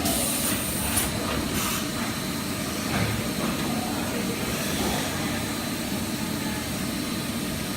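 Mazak Integrex 300-IV ST CNC multi-tasking turning center running: a steady mechanical hum with hiss, short bursts of higher hissing in the first two seconds, and a single knock about three seconds in.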